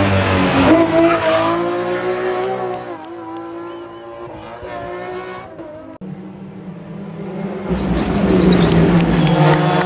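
Rally car engines revving hard at full throttle: a BMW rally car passes close for the first few seconds, then a quieter, more distant car is heard climbing; after a break about six seconds in, another rally car's engine grows louder as it approaches.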